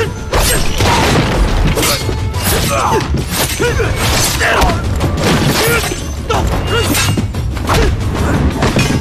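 Dramatic score with gliding melodic lines, cut through by many sharp hits and crashes.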